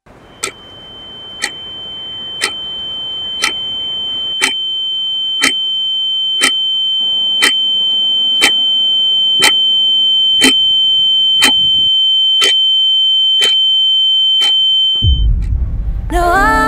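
Sound-design ringing: a steady high-pitched tone that swells slowly louder, over a clock ticking about once a second. Both stop about fifteen seconds in as a pop song begins.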